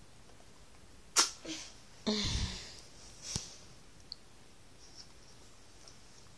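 A few short, sudden sounds from the children close by: a sharp burst of breath about a second in, then a louder short burst with a bit of voice and a bump, and a sharp click about a second later.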